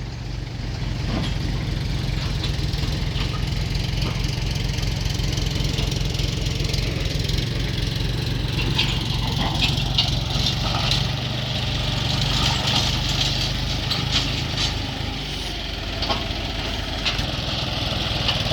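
John Deere tractor's diesel engine running steadily. Through the middle, sharper high-pitched rattling noises come and go over it.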